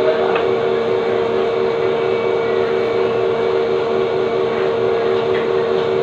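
Steady machine hum with a fast, even pulse, with a couple of faint clicks over it.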